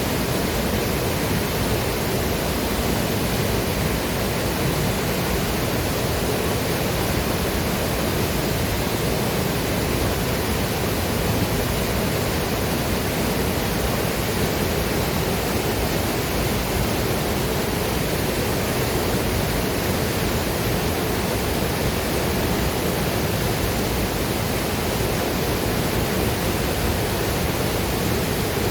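Waterfall: a steady, unbroken rush of falling water, even across low and high pitches.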